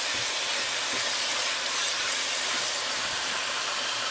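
Thick tomato-and-yogurt curry masala sizzling steadily in a nonstick wok as it is fried and stirred with a silicone spatula.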